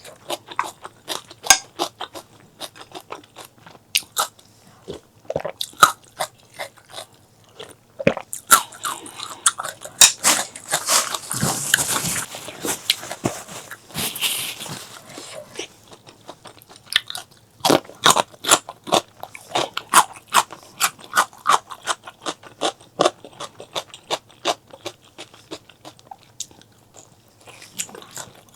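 Close-miked eating: repeated crunching bites and chewing with many sharp, quick clicks. A denser, hissing stretch of a few seconds comes about ten seconds in.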